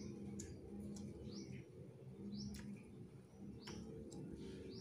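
Small birds chirping, a string of short quick calls, over a steady low hum, with a few faint sharp clicks.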